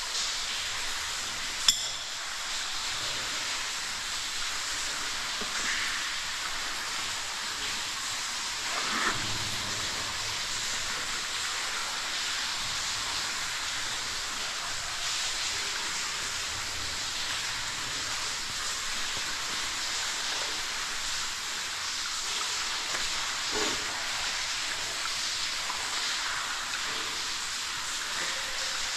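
Steady hiss of water falling and spraying down a wet cave shaft. A single sharp click comes about two seconds in.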